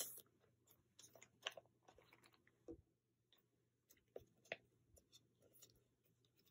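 Faint crinkling and light clicks of thin clear plastic card sleeves being handled as a photocard is slid into one, a handful of soft rustles spread over the few seconds.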